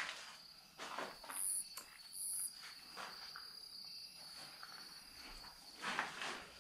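Crickets chirping steadily in the night air, with a few soft rustles in the undergrowth and two short, very high buzzes a second or so in.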